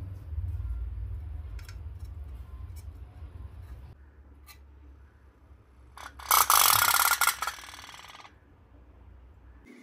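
Tin pop-pop toy steam boat, its candle-heated engine starting to pulse: a loud, rapid rasping putter about six seconds in that lasts a second or two and then fades. A few light clicks come before it.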